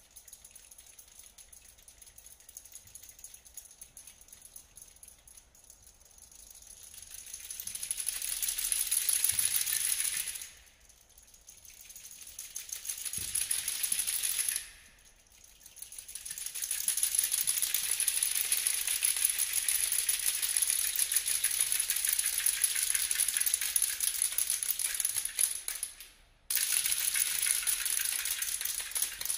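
Contemporary chamber ensemble playing extended techniques: a dense, high-pitched noise texture of rapid clicks. It swells up from quiet, breaks off suddenly twice, then returns and holds with a brief sudden gap near the end.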